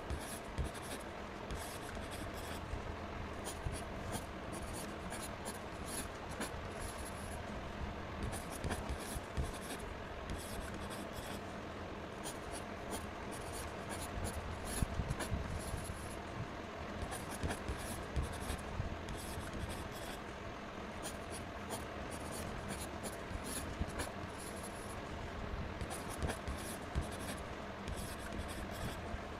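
Pen scratching on paper in many quick, irregular strokes, drawing straight lines along a plastic ruler.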